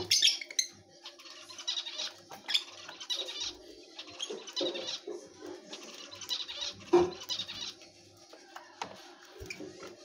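Rosy-faced lovebirds chirping in short rapid bursts of chatter, with wing flutters and a sharp knock about seven seconds in.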